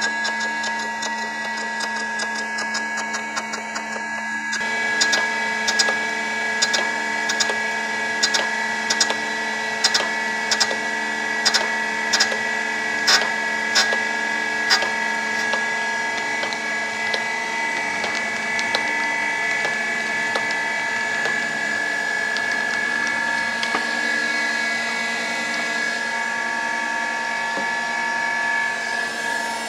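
Surface grinder running, its abrasive wheel grinding an angle onto a metal part. From about five seconds in, a sharp peak comes as the wheel crosses the part on each table stroke, a little more than one a second, for about ten seconds. After that the machine runs on steadily.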